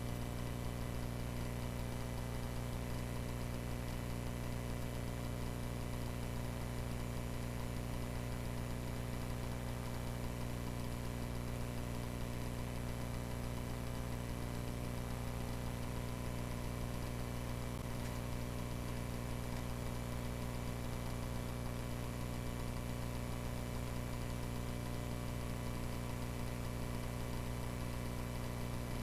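Cessna 140A's single piston engine running steadily inside the cockpit, an even hum with several fixed tones and no change in speed.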